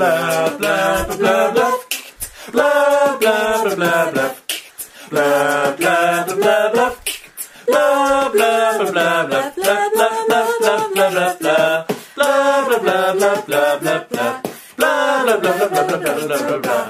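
Theme song sung a cappella: a voice carrying a melody in short phrases over a steady clicking beat made by mouth or hands. It stops abruptly at the end.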